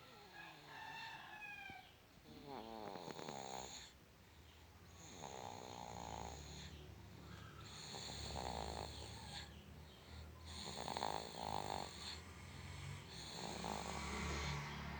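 A baby snoring in sleep, one snore with each breath, about every two to three seconds, some breaths carrying a thin high whistle.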